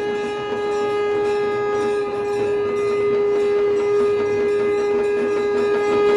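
Conch shell (shankh) blown in one long, steady note at an unchanging pitch, growing a little louder toward the end.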